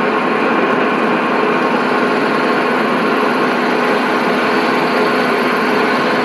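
Milling machine spindle running steadily with a fluted cutter skimming out the bore of an aluminium brake expander body: a constant machine hum with a few fixed tones and the hiss of the cut.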